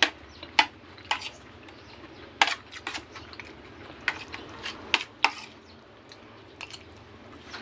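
Spoon and fork clinking and scraping against a plate while eating, in a dozen or so irregular sharp clicks, the loudest right at the start and about half a second in.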